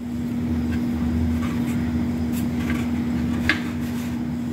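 A steady low rumble under a constant hum, with faint rustles and a few light ticks, one sharper about three and a half seconds in, as hands fold a paper-thin egg roll wrapper.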